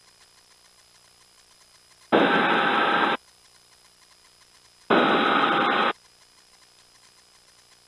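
Two short bursts of radio noise about three seconds apart, each about a second long, starting and cutting off sharply: an air-band transmitter keyed with no words spoken.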